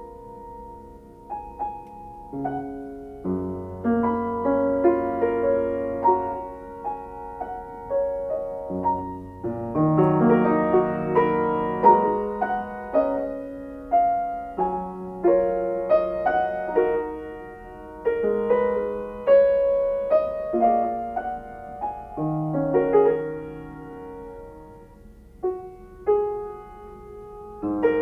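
Solo piano playing a slow piece: single notes and chords struck and left to ring, with low bass notes underneath at times.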